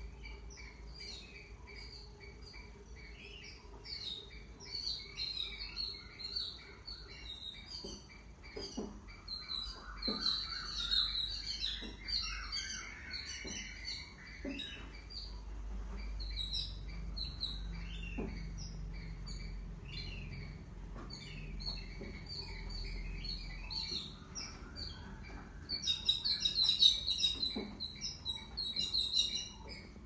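Repeated shrill chirping calls in quick runs, building into a dense, louder burst near the end, with a few soft knocks underneath.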